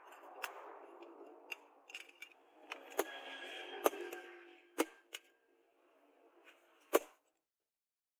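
Metal hammer blows on a red-hot steel trowel blank lying on a steel post anvil: about a dozen sharp, ringing strikes, irregularly spaced, with the loudest near the middle and one last strike about seven seconds in. A soft rustling hiss runs under the first half.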